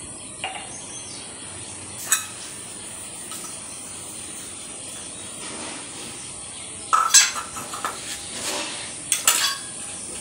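Steel plates and bowls clinking and clattering as they are washed by hand: a couple of single knocks in the first few seconds, then two bursts of clatter in the second half.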